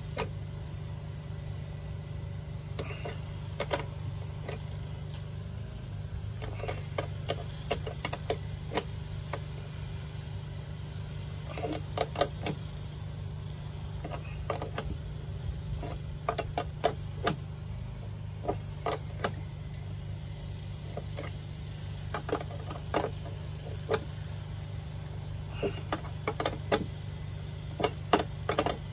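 Two spanners clicking and clinking on the bolt of a hand rivet-nut tool as it is tightened to set a rib nut in the van's sheet-metal body, with scattered sharp metallic clicks. A steady low hum runs underneath.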